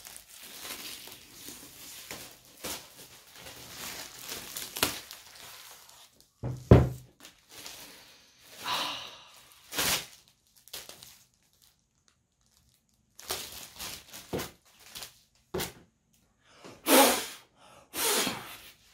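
Clear plastic wrap crinkling and tearing as it is peeled off a cardboard box, then one loud thump about seven seconds in. Scattered rustles follow, and near the end two loud puffs of breath.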